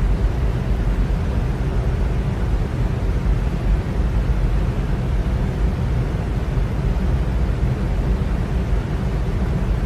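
Electric fan running steadily: an even low whoosh of moving air with a faint steady hum.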